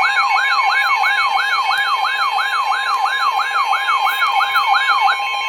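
Electronic alert siren repeating quick falling wails, nearly three a second, over a steady high alert tone of the kind used in Emergency Alert System broadcasts. About five seconds in the wailing stops and the steady tone holds on alone.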